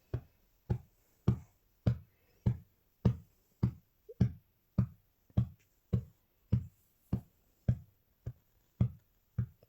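A steady drum-machine beat: single low kick-drum thumps about one every 0.6 seconds, evenly spaced with nothing else over them.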